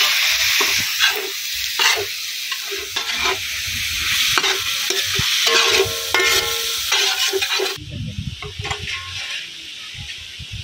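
Mutton tripe frying in a pan with onions, sizzling steadily while a steel spatula scrapes and stirs it. About eight seconds in the sizzle cuts off and quieter soft knocks follow as a knife cuts tomatoes on a board.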